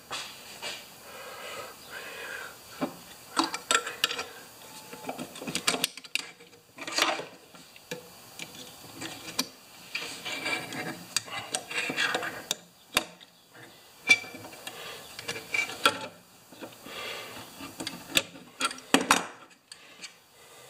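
Irregular metal clicks, clinks and scraping as steel coil-spring thatcher tines are worked onto a mower blade with pliers.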